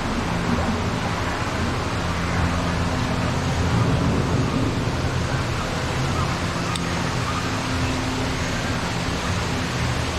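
Steady rumbling noise with a low hum underneath, the ambience of a slow indoor ride boat moving through a show scene, with a single faint click about seven seconds in.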